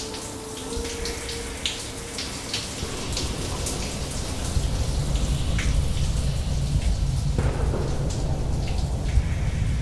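Shower running: water spraying and splashing onto tiles, with scattered drip ticks. A deep rumble builds up from about halfway, and a few faint steady tones fade out in the first couple of seconds.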